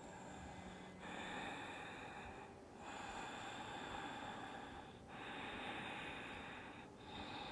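Slow, deep yoga breathing through the nose while holding a stretch. There are about four long breaths of roughly two seconds each, with short pauses between them.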